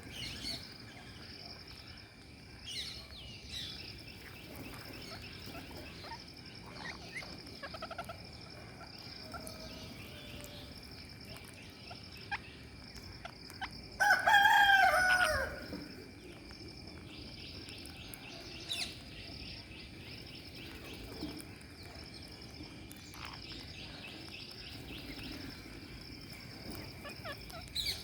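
Birds calling: scattered short chirps, and halfway through a single loud call lasting about a second and a half that falls in pitch. A faint steady high tone runs underneath.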